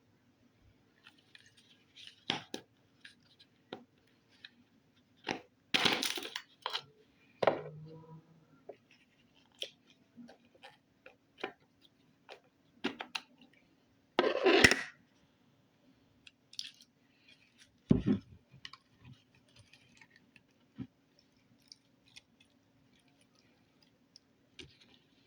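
Slime or putty being squished and worked by hand: scattered small sticky clicks and crackles, with two louder bursts about six and fourteen seconds in.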